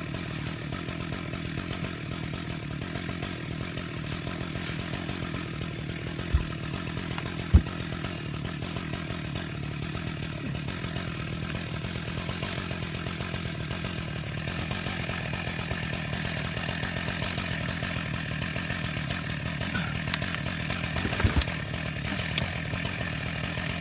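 Stihl chainsaw running steadily as it cuts through a large Douglas fir log. A few sharp knocks stand out over it.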